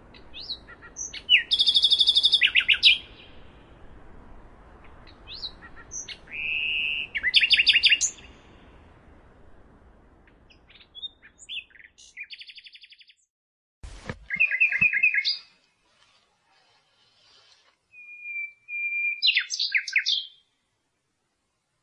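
Nightingale singing in separate phrases with pauses between them: fast runs of repeated notes, some introduced by a held whistle. A faint hiss lies under the first half, and there is one short low knock about fourteen seconds in.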